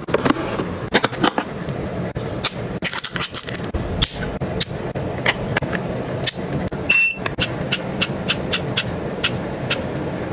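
Items being handled and set down: a run of sharp clicks and taps, irregular and several a second in places, over a steady low hum. A short high electronic beep sounds about seven seconds in.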